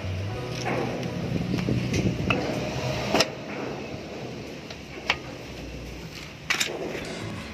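Metal clinks and knocks from a car's rear drum brake shoes and springs being worked into place by hand on the backing plate. There are a few sharp clicks, the loudest about three seconds in and again near the end.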